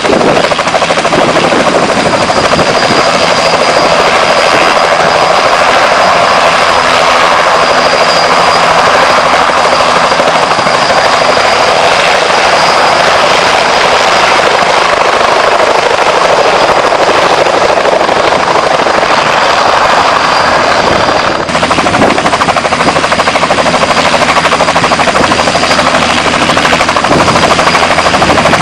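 Continuous helicopter flight sound, loud and steady throughout, with a brief dip about 21 seconds in.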